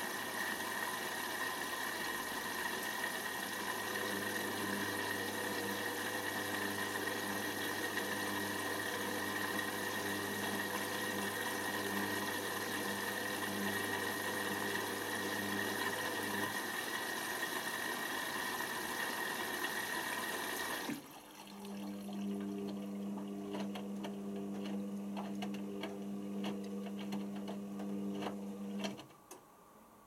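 Indesit IWC6165 washing machine at the start of a rinse: water hisses in through the inlet valve while the motor whirs in bursts, turning the drum to tumble the wash. The water hiss cuts off about two-thirds of the way in. The drum keeps turning with soft knocks and splashes from the wet laundry, then stops near the end.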